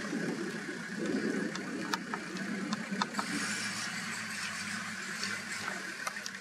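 A vehicle engine idling steadily, with a few sharp clicks about two, three and six seconds in.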